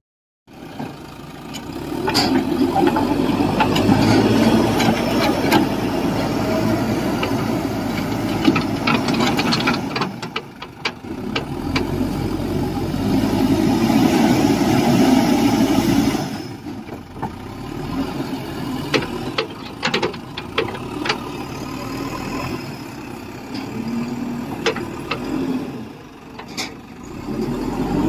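JCB 3DX backhoe loader's diesel engine working under load, swelling and easing as the machine digs into and lifts brick rubble and soil, with scattered clanks. The engine comes in about half a second in.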